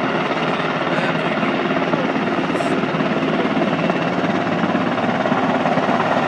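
Military helicopter flying low and approaching, its rotor and engine running steadily.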